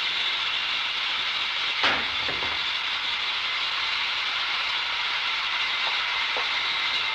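Steady hiss of an old film soundtrack with one sharp knock about two seconds in.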